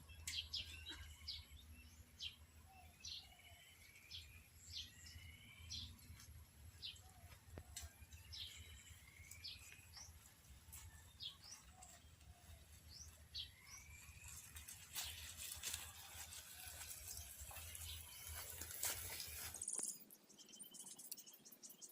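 Outdoor birds calling repeatedly in short sweeping chirps. A rustling, clicking noise comes in during the second half, and a low hum underneath stops suddenly near the end.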